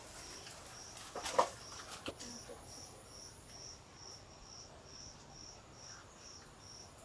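An insect chirping in an even rhythm, about two to three high chirps a second, with a brief louder sound about a second in.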